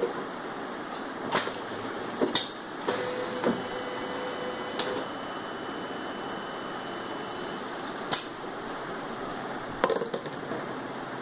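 Semi-automatic bottle labeling machine running a labeling cycle: a steady running noise with a thin motor whine for a few seconds around the middle. Several sharp clicks and knocks are spread through it as the bottle is loaded, pressed against the label roller and taken out.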